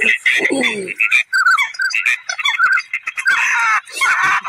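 A chorus of ducks calling: many quick, short calls that each drop in pitch, repeated rapidly, with a lower sliding call in the first second and a thicker burst of calling about three and a half seconds in.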